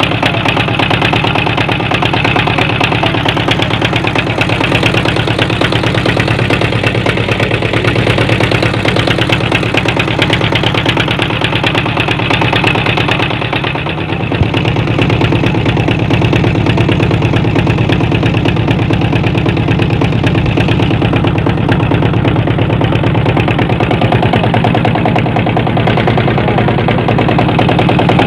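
The boat's deck-mounted engine, turning the propeller shaft through V-belts, running steadily under way with a fast, even beat. The level dips briefly about halfway through.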